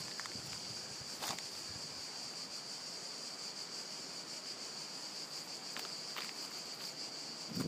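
Cicadas singing in a steady, high-pitched chorus, with a few faint clicks over it.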